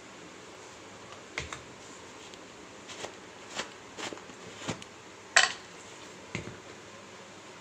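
Light clicks and clinks of a spoon and utensils against a metal cooking pot, about ten irregular taps, the sharpest about five and a half seconds in.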